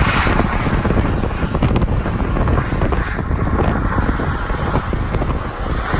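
Lifted GMC Sierra pickup doing donuts, its engine running hard and its rear tyres spinning on asphalt. Wind buffets the microphone.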